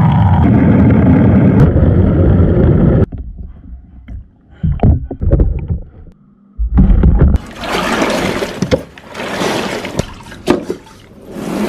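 Water sloshing and gurgling as a spin mop's head is plunged and worked in its bucket, partly heard from below the water surface. A loud churning for about three seconds stops suddenly, followed by scattered splashes and then a further spell of splashing water.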